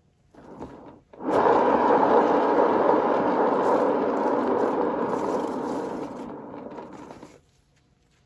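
Turntable spinning under a painted pour tile, starting about a second in and fading as it slows, then stopping suddenly about seven seconds in.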